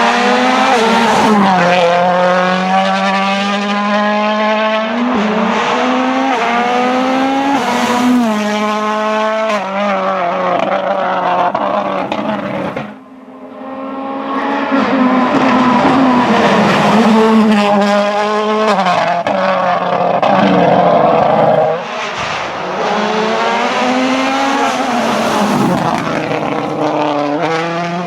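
Toyota Yaris WRC rally car's turbocharged 1.6-litre four-cylinder engine driven hard, revs climbing and dropping again and again with quick gear changes. The sound fades sharply about halfway through, then builds back up with more hard acceleration.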